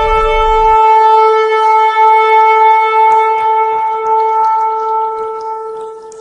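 A long shofar (ram's horn) sounded in one long, steady blast, fading out near the end.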